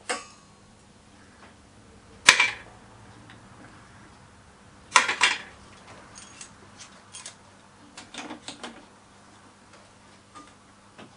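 Metal clanks and clicks as the lid of a small electric melting furnace is lifted and steel tongs are worked into its top. A sharp clank about two seconds in and a quick run of clanks around five seconds are the loudest, followed by lighter ticks and a short rattle.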